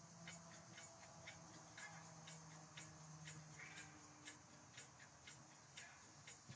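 Faint, regular ticking, about three ticks a second, over a low hum that fades about halfway through.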